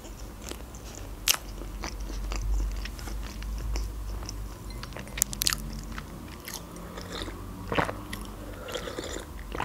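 Close-miked mouth sounds of a person chewing soft tiramisu, with a few sharp wet clicks and smacks now and then, and a sip from a mug near the end.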